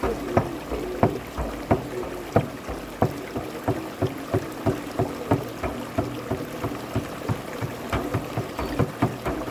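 A steady drum beat of about three strikes a second under a low flute melody, with a stream rushing over rocks.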